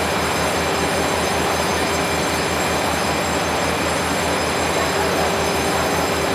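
Diesel-electric locomotive R108 running steadily at standstill, an even low throb under a constant hum.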